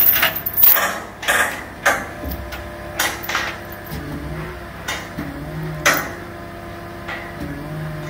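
Irregular sharp metallic clanks and knocks, about ten in all, from a steel beam tilt ramp and the CAT 272D skid steer sitting on it as the ramp is raised toward the tipping point. A low machine hum comes and goes underneath.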